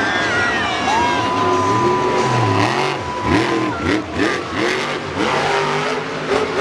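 Monster truck's supercharged V8 engine revving hard and repeatedly, its pitch rising and falling in quick blips over a steady crowd din.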